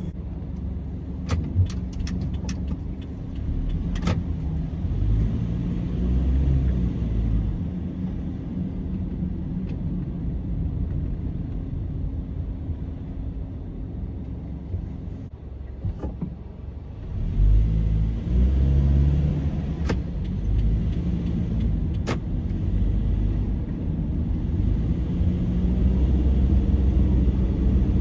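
Car driving on a town street, heard from inside: a steady low rumble of engine and tyres that eases off for a few seconds midway and then picks up again. A few sharp clicks near the start and two more later on.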